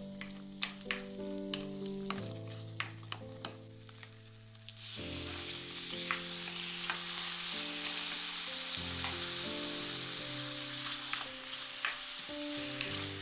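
Food sizzling in hot oil in a frying pan, julienned potato pancake frying; the sizzle comes in strongly about five seconds in, after a few seconds of light clicks and taps. Background music with held notes plays underneath.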